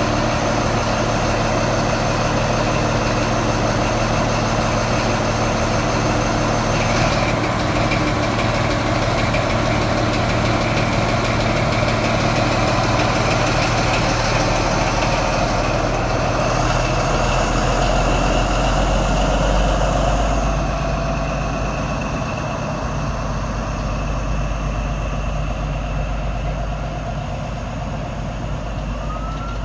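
Diesel engine of an InterCity 125 (HST) Class 43 power car running steadily alongside the platform, with a high whine over the engine note, as the train departs. The engine note swells about two-thirds of the way through, then drops away as the coaches roll past.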